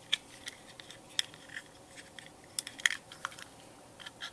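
Irregular sharp clicks and light scrapes of hard plastic being handled as a thin coax antenna cable is pushed into the module bay of a Turnigy 9X RC transmitter.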